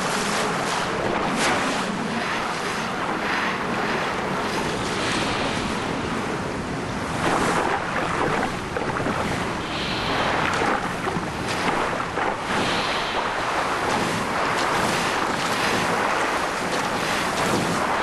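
Churning water and rushing bubbles, with many brief splashy surges, from predatory fish attacking a school of baitfish just below the surface.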